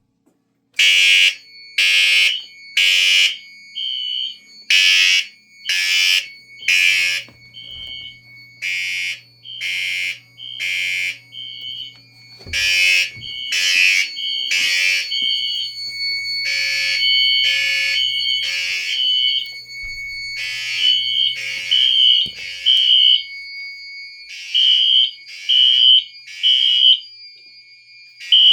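Fire alarm horns on a test system sounding the temporal-three evacuation pattern: groups of three loud blasts about a second apart, each group followed by a longer pause. A second horn beeps out of step with the first, filling the gaps with shorter high beeps.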